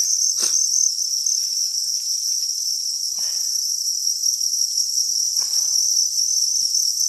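A chorus of many farmed crickets chirping in a rearing pen: a dense, steady, high-pitched trill.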